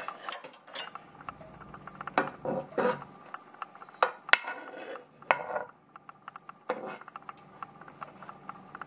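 A metal spoon and fork scrape and clink against a non-stick frying pan while scooping up diced fried meat: a run of irregular scrapes and clicks with a few sharper knocks.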